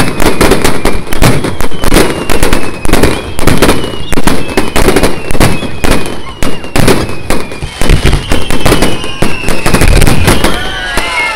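Fireworks barrage at close range: a dense, loud volley of bangs and crackles, several a second, with thin whistles sliding down in pitch through it.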